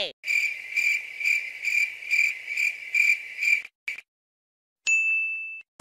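Cricket-chirping sound effect, the comic cue for an awkward silence: a high chirp repeating about twice a second for three and a half seconds, then stopping. Near the end comes one brief high steady tone.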